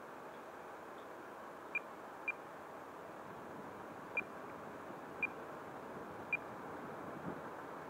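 Five short, high-pitched beeps at uneven intervals over a steady outdoor background hiss.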